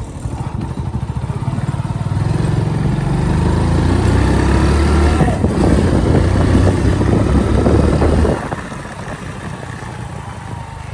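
Hero motorcycle engine running under way, getting louder from about two seconds in, then dropping off suddenly about eight seconds in.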